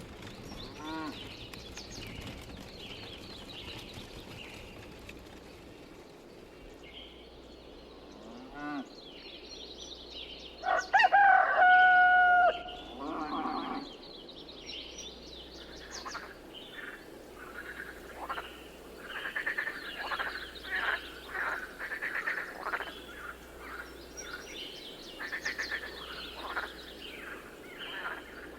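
A rooster crows once, loud and drawn out, about eleven seconds in, over steady chirping of small birds and some clucking of hens.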